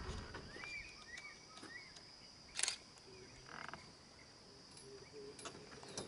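Steady high-pitched insect chorus of crickets or cicadas, with a few faint short rising bird chirps in the first couple of seconds and a single sharp click about two and a half seconds in.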